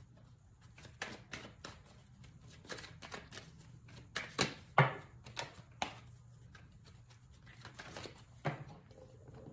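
Tarot cards being shuffled and handled: a run of irregular soft clicks and snaps, the loudest a little under five seconds in.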